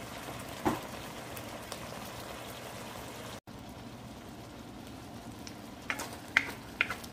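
Squid adobo simmering in a wok with a steady bubbling hiss, its sauce nearly cooked down. A wooden spatula gives a light knock about a second in and several clicks and scrapes against the pan near the end.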